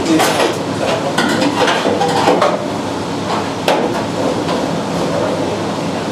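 Metal clanking and scraping as sheet-metal car body parts are forced into place. It is busiest in the first couple of seconds, with one sharp knock about three and a half seconds in, over a steady low hum.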